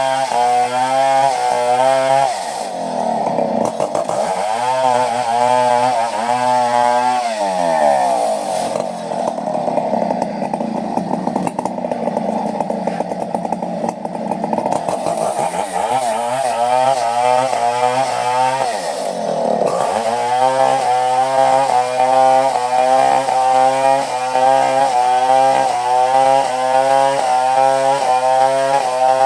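Chainsaw cutting coconut wood, its engine running at high revs with a constantly wavering pitch. Three times the revs drop away and climb back: near the start, about a quarter of the way in, and about two-thirds of the way through.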